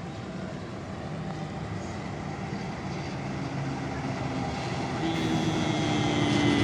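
KAI CC206 diesel-electric locomotive approaching with a train of empty freight wagons, its engine running and growing steadily louder as it nears. A steady higher tone joins about five seconds in.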